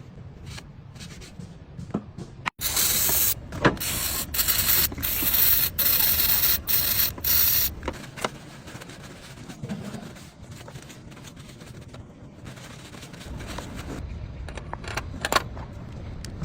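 A pressurised spray hissing loudly in several bursts for about five seconds, with short breaks between them. Scattered clicks and knocks come before and after it, over a low rumble.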